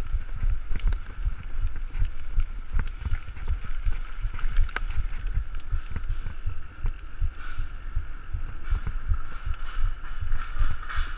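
Wind buffeting the handlebar-mounted camera's microphone while riding a mountain bike at speed on pavement: an irregular low rumble and thumping, with a few sharp clicks and rattles from the bike.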